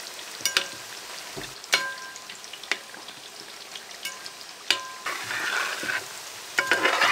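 Boiled beef pieces deep-frying in hot oil in a large metal pot: a steady sizzle, with a steel slotted ladle clinking against the pot several times and scraping through the meat as it stirs, louder near the end.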